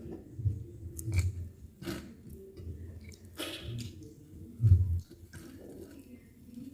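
Close-up eating sounds: chewing and wet mouth clicks with a few soft thumps, the loudest just before the five-second mark.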